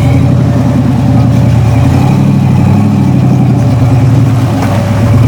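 V8 engine of an offroad Jeep coming on loud under throttle, then running hard and steady, its pitch stepping up a little about two seconds in.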